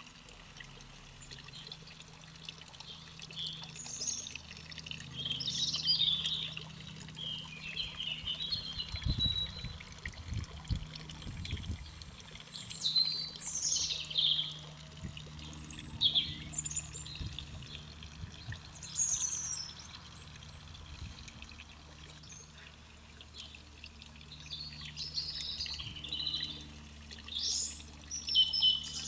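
Garden birds singing: short chirping song phrases come in bursts several times, over a steady low hum.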